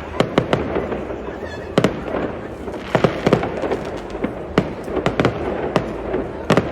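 New Year's Eve fireworks going off: sharp bangs and cracks in irregular clusters, several close together about three seconds in and again near the end, over a steady background of noise.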